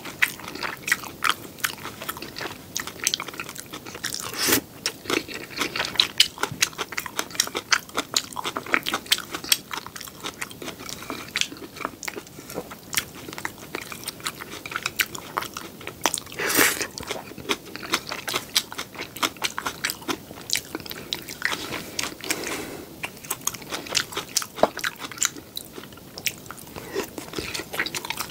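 Close-miked eating: crunchy bites and steady chewing of green onion kimchi, made up of many quick, irregular wet clicks and crunches, with a few louder bites along the way.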